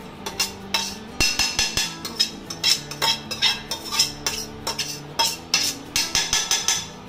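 Metal spoon scraping and knocking against a coated kadhai in quick, irregular clicks and scrapes as roasted grated coconut is emptied out of the pan.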